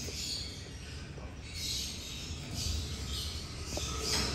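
Faint chirping and chatter of caged birds, coming and going, over a steady low hum that grows stronger near the end.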